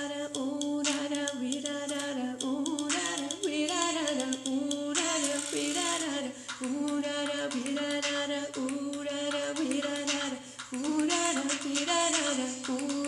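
A woman singing a Hindi film song in a small room, her voice sliding up and down through the melody with short breaks between phrases.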